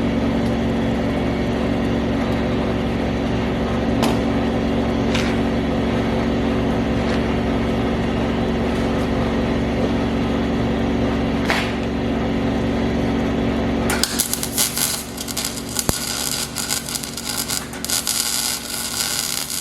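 A steady electric machine hum with a few sharp clicks, then, about fourteen seconds in, a harsh irregular crackle typical of arc welding.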